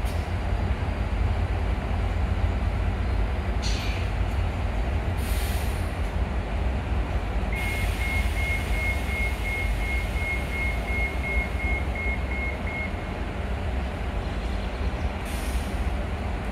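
Bi-level commuter train pulling away from the platform: a steady low rumble, with a few short hisses of air. Midway through, a rapid high electronic beep repeats evenly for about five seconds.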